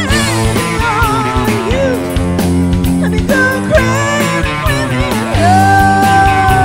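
Rock band music: an electric guitar lead with bent, wavering and long held notes over bass and drums.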